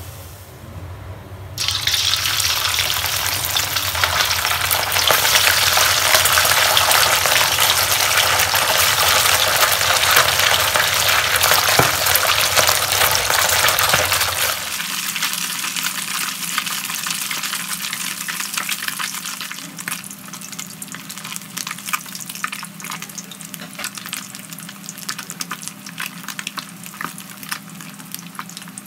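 Sun-dried snakeskin gourami deep-frying in a wok of hot oil: a loud, even sizzle starts suddenly about two seconds in. From about halfway it is quieter, with sharp crackling pops.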